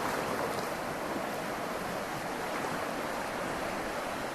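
Bobonaza River running high and fast after hours of heavy rain: a steady rush of water from the strong current.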